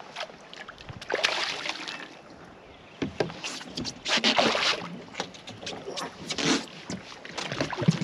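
A hooked speckled trout thrashing and splashing at the water's surface beside a boat as it is played to the net, in several irregular bursts, the strongest about a second in and around four seconds in.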